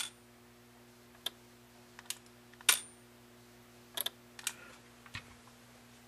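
Scattered sharp mechanical clicks, about eight of them, the loudest near the middle with a brief high ring, over a steady low mains hum. They come from a mechanical Zenith Space Command hand remote being pressed and the relays of a Zenith Space Command 600 receiver chassis clicking as they answer the channel-up command.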